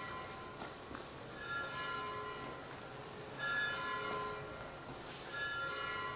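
A church bell tolling. It is struck about every two seconds, and each strike rings on with several overtones before the next.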